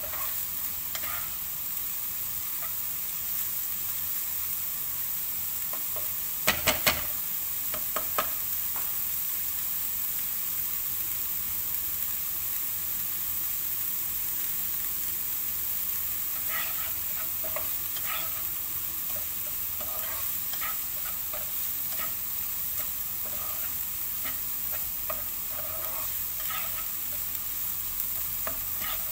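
Food sizzling steadily in a frying pan on medium heat while it is stirred with a spoon, with small scrapes against the pan. A few sharp knocks come in a quick cluster about six seconds in, and one more shortly after.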